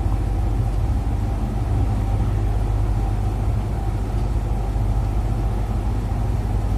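A steady low rumble, like an idling engine, with a faint steady higher tone above it.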